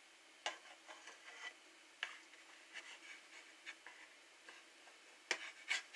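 Faint, scattered light clicks and knocks of cooking utensils on a pan on a wood-burning stove, the two loudest near the end, over a faint steady hum.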